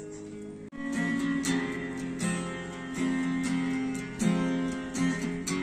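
Background music: acoustic guitar strummed in an instrumental passage without vocals. The music drops out for a moment under a second in, then carries on.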